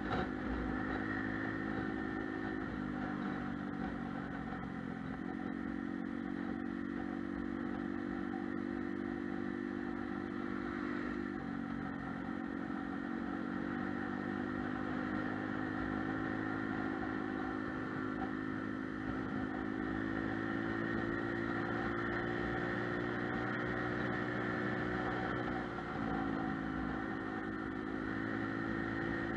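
Lexmoto Milano scooter's engine running at road speed, heard from the scooter itself, its pitch dropping and climbing a few times as the throttle is eased and opened, over steady wind and road noise.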